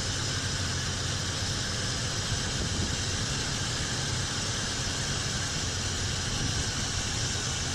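1991 Ford Ranger pickup's engine idling steadily, a low hum under a broad hiss.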